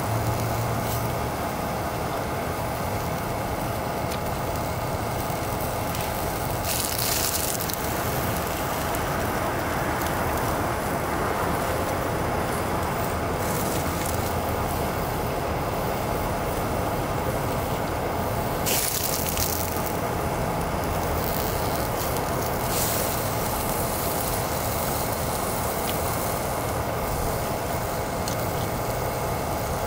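Canister gas stove burning under a frying pan of sausages and fries that are sizzling: a steady hiss, with a few short louder surges of hiss.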